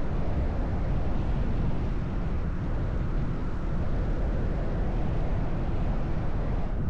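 Single-cylinder engine and exhaust of a Honda 125 cc Cub motorcycle running at a steady cruising speed, mixed with wind and road noise on the microphone.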